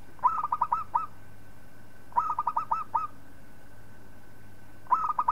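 Zebra dove cooing: three quick phrases of rapid staccato notes, each under a second long, about two seconds apart.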